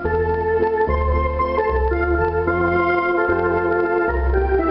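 Zero Sette electronic accordion being played, giving an organ-like tune over a bass line that changes note about once a second. It is being test-played after repair of its electronics.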